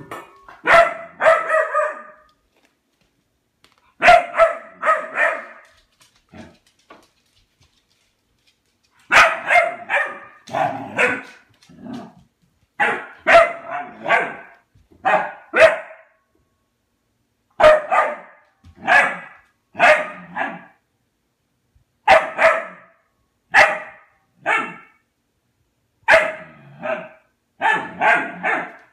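Young dog barking in bunches of two to five barks with quiet pauses between, demand barking at its empty metal food bowl.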